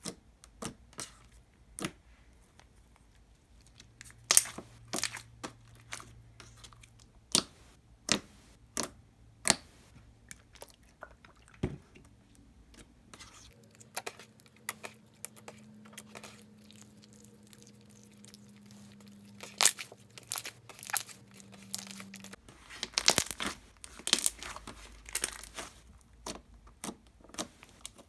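Thick, glossy slime being squeezed, stretched and folded by hand, making irregular sharp bubble pops and clicks, with a busier run of pops near the end.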